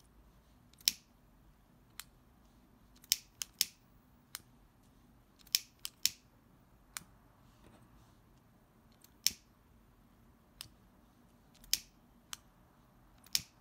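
A hand-held lighter struck again and again, giving about fifteen sharp clicks at uneven intervals, as its flame is brought to the edges of organza ribbon petals to singe them so they curl.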